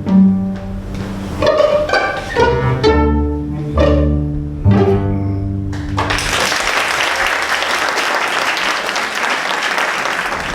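A student string orchestra of violins and cellos plays its last notes. The music stops about six seconds in and audience applause follows and continues.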